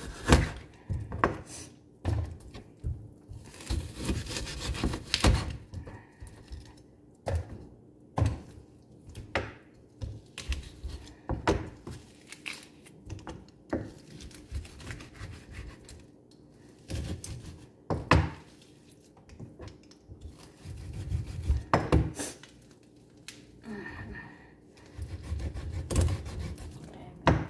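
Kitchen knife cutting raw chicken on a plastic cutting board: irregular knocks of the blade against the board, with a short stretch of rustling about four seconds in.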